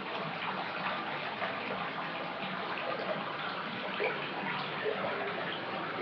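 Water running from a tap into a filling bathtub: a steady rushing noise with small splashes and bubbling on top.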